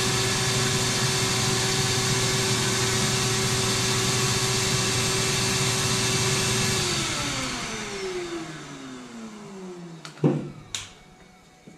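Shop vacuum used as the track saw's dust extractor running steadily, then switched off about seven seconds in, its motor winding down in a falling whine while the clogged dust hose is dealt with. Two sharp knocks from handling the hose follow near the end.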